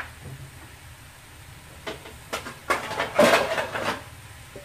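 Metal cookware being handled: a few light knocks, then a short clatter about three seconds in, over a faint steady low hum.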